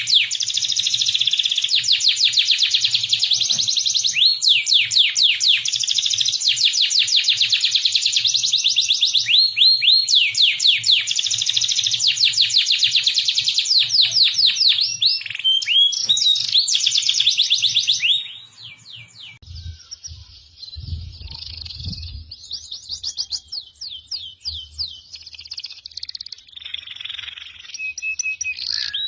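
Songbird song from a masteran recording: loud, fast runs of rapidly repeated sweeping notes, which cut off abruptly about two-thirds of the way in and give way to quieter, sparser twittering.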